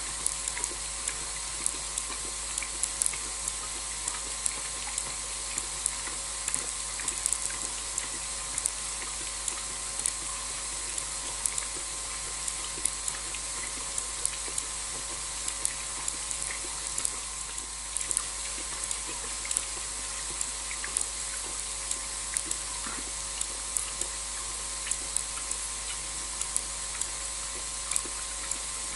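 Night insect chorus: a steady high hiss with scattered faint clicks throughout.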